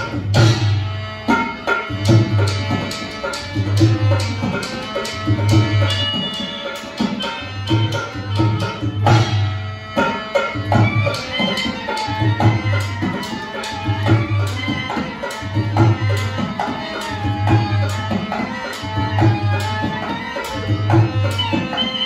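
Traditional Indian folk music: hand drums keep a steady repeating beat, with a deep stroke about every second and a half and quick sharp strokes between, under a melody.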